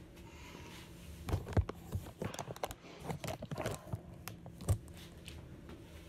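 Irregular clicks, knocks, scrapes and rustles from a person moving close to the microphone, with two heavier thumps about one and a half and four and three-quarter seconds in, over a steady low hum.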